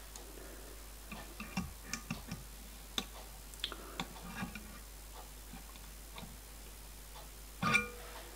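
Small metal clicks and taps of pliers working a thin strip of metal against a steel block held in a clamp, irregular and light, with one louder knock near the end.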